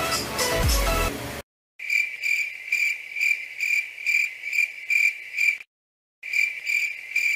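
Cricket chirping sound effect, the 'crickets' awkward-silence gag: a high chirp repeating about twice a second. It comes in after a sudden cut to dead silence about a second and a half in and drops out briefly near six seconds.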